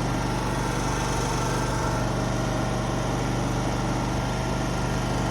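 Zero-turn riding mower's engine running steadily at a constant speed, with a steady low hum.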